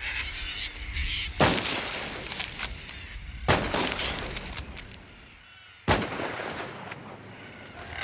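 Three high-powered rifle shots about two seconds apart, each a sharp crack followed by an echo that dies away over about a second. The shots are fired to scare off a flock of crop-raiding cockatoos.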